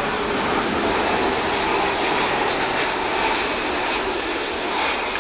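Twin jet engines of an Airbus A330 airliner on final approach just before touchdown: a steady loud rumble and hiss with a faint whine.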